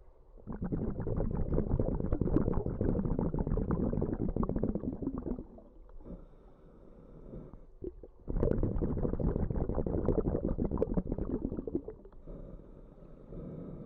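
Underwater breathing through a scuba regulator, bubbling: two long exhalations of about four to five seconds each, with a quieter pause between them.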